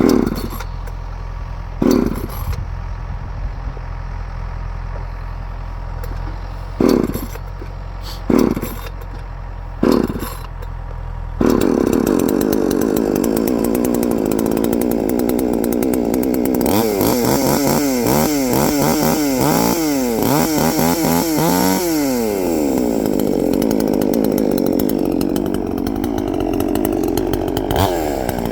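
Chainsaw idling with five short bursts of throttle, then held at high revs from about eleven seconds in. Its pitch rises and falls repeatedly for several seconds in the middle, then it runs steadily.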